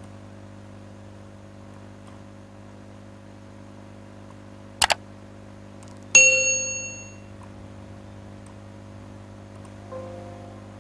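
A mouse double-click, then a computer's alert ding that rings out and fades over about a second; a fainter short tone follows near the end. A steady mains hum runs underneath.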